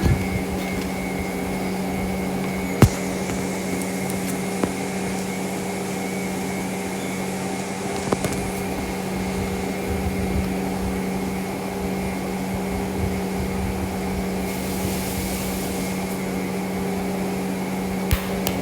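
A machine hums steadily at a fixed pitch, like a fan or appliance motor, with a sharp click about three seconds in and a few fainter ticks; the hum cuts off near the end.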